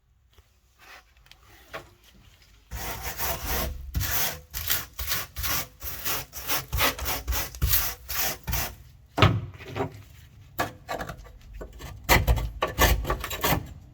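Cured car body filler being abraded by hand, with rapid back-and-forth scraping strokes, a few a second. It starts about three seconds in, eases off briefly, then comes back strongly near the end.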